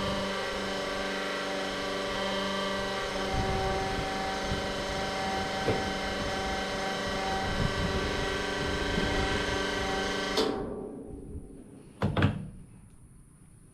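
Electric diesel transfer pump running steadily as fuel flows through the nozzle into the generator's tank on a slow fill, cutting off sharply about ten seconds in. A couple of sharp knocks follow as the metal nozzle is lifted out of the filler neck.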